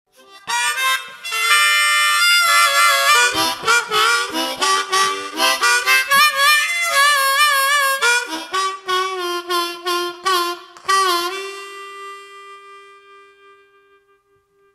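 Blues harmonica music: a run of quick notes, some of them wavering, ending on a long held note that fades away.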